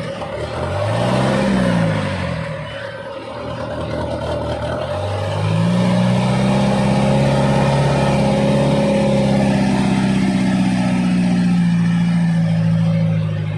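Toyota FJ40's swapped-in 13B six-cylinder diesel engine revving: a quick rise and fall in revs near the start, then climbing about five seconds in and held steady at high revs for some eight seconds before easing off at the end.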